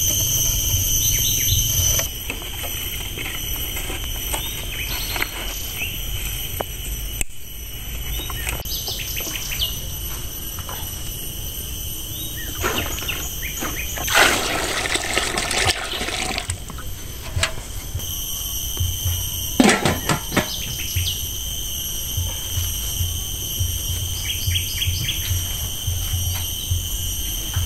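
Water poured from one metal cooking pot into another, splashing for about two seconds about halfway through. Under it runs a steady high drone of insects, and there are scattered knocks and clatters of pots and wood being handled.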